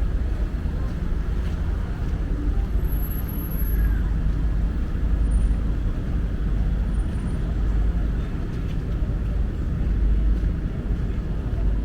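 Steady city traffic noise: a continuous low rumble of passing road vehicles.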